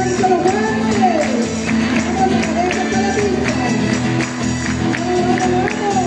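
Live cueca music: a sung melody over accordion with a tambourine and hand-clapping keeping a steady, regular beat.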